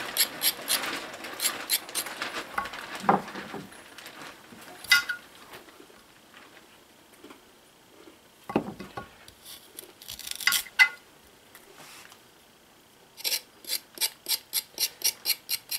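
The back of a chef's knife scraping the skin off a carrot on a marble cutting board, in quick strokes, with a few knocks of knife and carrot on the board in between. Near the end there is a steady run of about five scrapes a second.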